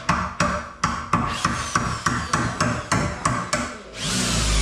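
A hammer striking over and over at about three blows a second. Near the end, a loud steady whirring noise with a falling whine cuts in.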